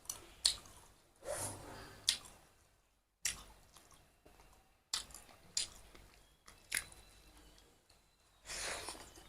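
A person eating close to the microphone: chewing and mouth sounds with about six sharp clicks spread through, and two longer hissing swells, one about a second in and one near the end.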